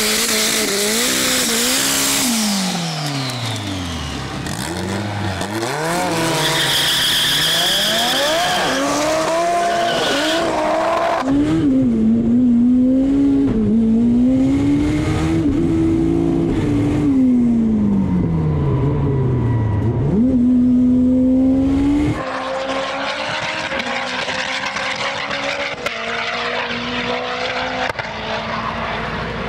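Turbocharged Honda S2000 engine under hard acceleration on a launch, with tyres squealing as they spin and struggle for grip. The engine note climbs and falls back again and again as the car works up through the gears, then turns into a steadier, more distant engine sound near the end.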